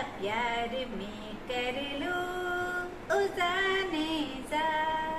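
A female voice singing a melody without accompaniment: long held notes joined by slides in pitch, in several phrases with short breaks between them.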